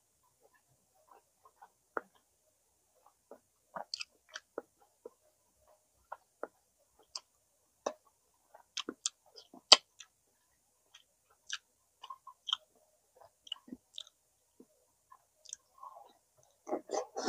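A person chewing and eating at close range: scattered short mouth clicks and smacks at irregular intervals, with a denser cluster of them near the end.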